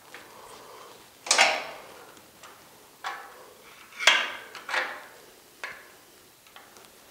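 A wrench and screwdriver clinking on the valve adjuster's jam nut and rocker arm of a 1600 dual-port VW Type 1 air-cooled engine while the valve lash is set. About eight sharp metallic clinks, each ringing briefly, the loudest about a second in and about four seconds in.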